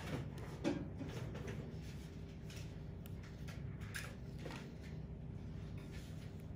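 Steady low room hum with faint scattered rubbing and tapping handling noises, the sharpest a light knock about two-thirds of a second in.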